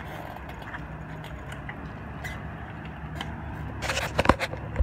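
Steady low rumble of an idling engine. Near the end comes a quick cluster of sharp knocks from the phone being handled.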